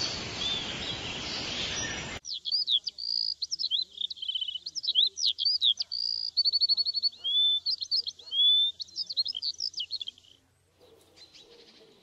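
For about two seconds a steady hiss of outdoor background noise carries a bird call, then it switches abruptly to a songbird singing a fast, varied song of chirps, trills and whistles. About ten seconds in the song stops and faint lower calls follow.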